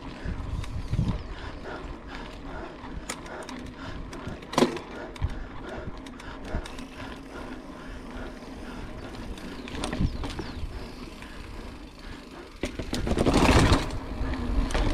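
Mountain bike being ridden along a course path: tyres rolling, with sharp clicks and knocks from the bike over bumps a few times, and a louder rush of noise near the end.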